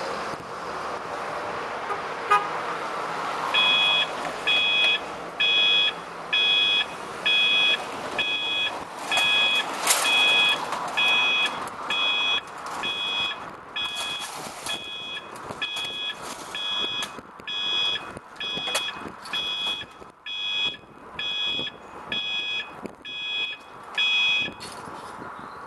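Automatic level crossing warning alarm: a two-tone beep pulsing about once a second, starting about three and a half seconds in and stopping shortly before the end, as the road barriers lower. Road traffic noise runs beneath it.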